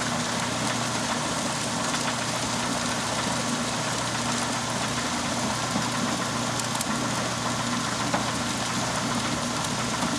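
A small motor running steadily, a constant hum under a broad hiss.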